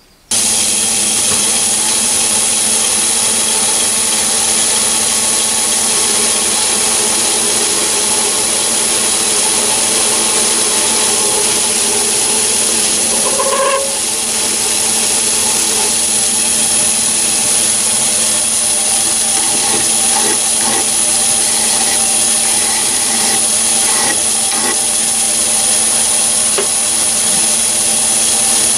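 Myford ML7 lathe running while turning down the end of a shaft made from a 20mm bolt: a steady machine hum and hiss with a constant high-pitched whine over it.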